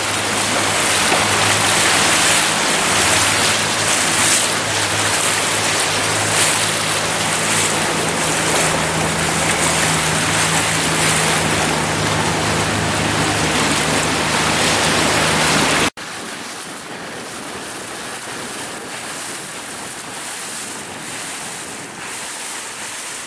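A motorboat's engine running with a steady low hum under a loud rush of wind and water. About two-thirds of the way in it cuts off suddenly to a quieter wash of water and wind with no engine hum.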